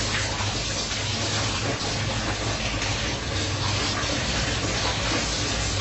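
Water running and splashing steadily, the sound of water being poured over the body in a ritual full-body washing (ghusl).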